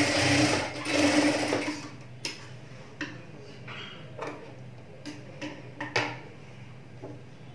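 Table-mounted electric sewing machine stitching a seam in two short runs, stopping about a second and a half in. Then a few sharp clicks as the thread is snipped with scissors.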